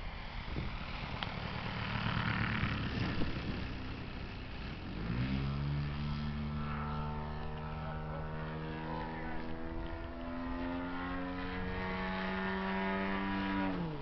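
Large-scale RC Extra 330's DA100 twin-cylinder two-stroke petrol engine turning a 28 by 12 propeller in flight. For the first few seconds it is faint under wind noise on the microphone. About five seconds in it comes up sharply to a steady high drone that creeps up in pitch, then drops away sharply just before the end.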